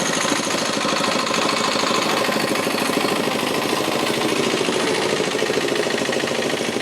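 Bus engine idling with a steady, rapid clatter.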